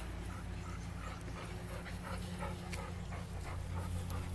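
A dog making faint, short sounds a few times a second while playing with a toy, over a steady low rumble.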